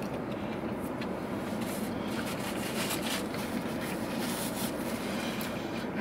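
Chewing and mouth sounds from a person eating a bun-wrapped fried chicken tender, with faint scattered smacks, over a steady low hum inside a car cabin.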